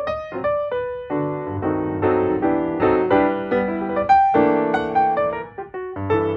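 Background music: solo piano playing a gentle melody with chords.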